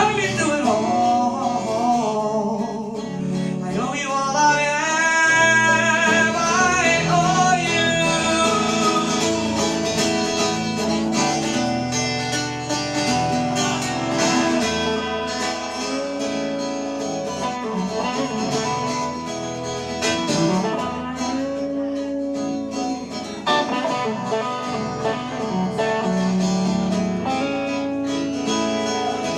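Acoustic guitars playing a country-style song in a passage without lyrics, with a lead line of gliding notes about four to eight seconds in.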